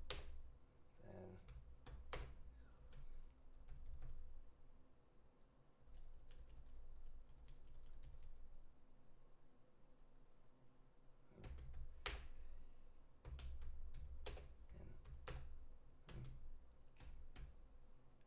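Faint computer keyboard typing: irregular runs of keystrokes with a pause of a few seconds in the middle.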